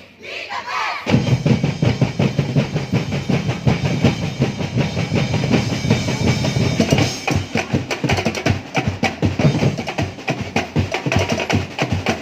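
Loud, percussion-heavy street-dance music: a fast, steady drum beat with bass drum, starting about a second in.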